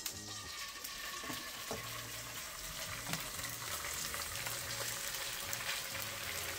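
Salmon fillets sizzling as they are laid into hot olive oil in a cast iron skillet, a steady frying hiss.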